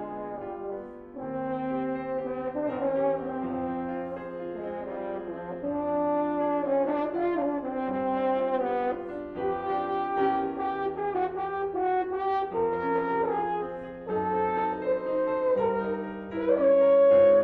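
French horn playing a melodic line of held notes over grand piano accompaniment, in phrases with short breaks, growing loudest near the end.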